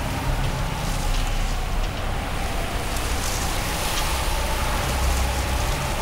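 Eerie horror-score sound bed: a steady low rumble under a wind-like hiss, with a faint held drone.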